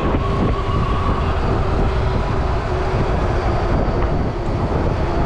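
Wind rushing over the microphone and road rumble while riding an electric two-wheeler at speed, with a faint steady whine under it.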